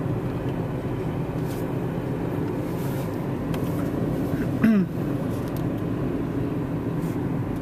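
Steady road and engine noise of a car driving, heard from inside the cabin. A short voice sound comes about two-thirds of the way through.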